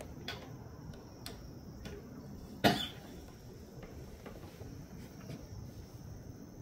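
A single short cough, about two and a half seconds in, over the steady high chirring of crickets.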